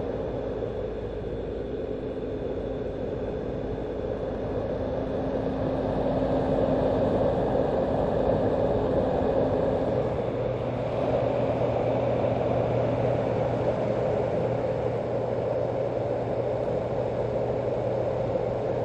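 Steady rushing noise from a white noise sound machine, with a faint low hum that drops to a lower pitch about halfway through.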